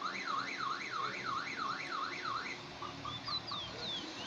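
Car alarm wailing in a rising-and-falling tone, about seven even sweeps, stopping about two and a half seconds in. Short bird chirps follow near the end.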